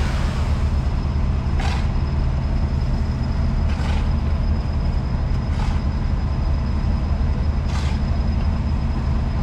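Heavy road-works machinery engine running steadily at a low drone, with a short hiss repeating about every two seconds.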